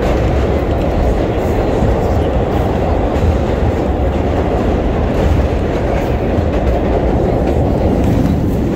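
Vintage New York City subway train (R33/R36 cars) running through the tunnel: a loud, steady low rumble of wheels on rail.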